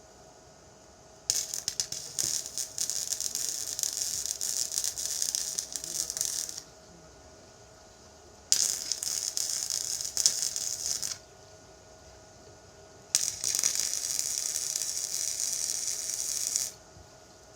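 TIG welding arc struck three times, giving three runs of crackling hiss: about five seconds, then about three, then about three and a half. Each starts with sharp crackles.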